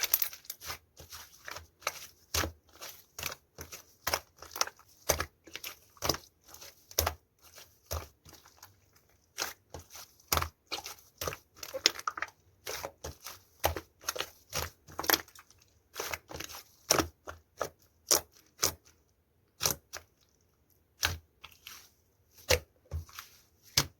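Slime being pressed, poked and stretched by hand, giving a steady run of sharp clicks and pops, about two a second, that thins out near the end.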